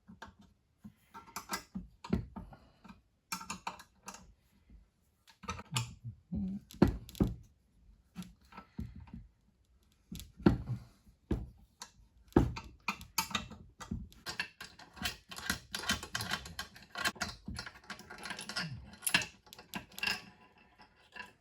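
Irregular sharp metallic clicks and clinks of steel nuts and hand tools being handled and worked, as a puller made from long nuts is set up to draw the worn bush out of the gearbox housing. The clicks come in scattered groups at first and more thickly in the second half.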